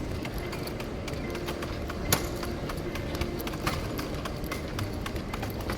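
Footsteps on a hard terminal floor over steady airport hall noise, a run of irregular light clicks with one sharper click about two seconds in.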